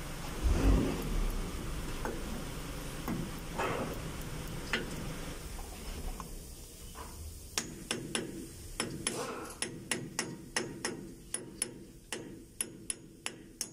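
Hammer tapping on a socket held against the centre of a pickup's front wheel hub, metal on metal. A few scattered knocks come first, then from about halfway an even run of light, sharp taps, roughly two to three a second.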